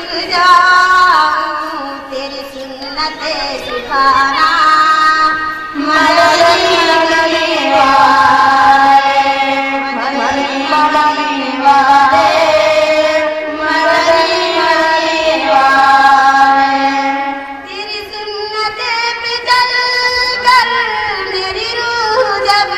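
Schoolgirls singing a devotional Urdu naat together through a handheld microphone and PA, a melodic line with long held notes.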